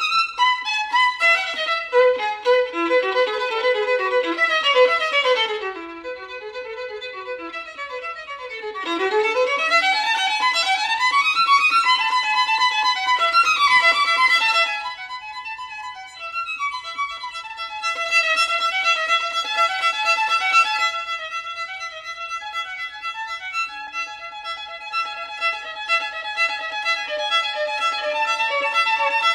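Violin music: fast runs up and down the scale for the first half or so, then longer held notes.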